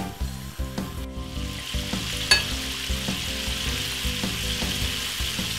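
Chicken pieces deep-frying in a pan of hot oil, a steady sizzle. Metal tongs clink sharply against the pan once, about two seconds in.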